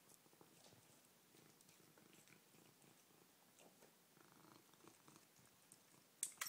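Faint purring and small soft clicks from a domestic cat eating goldfish flakes with its head in the food tub, then one sharp click near the end.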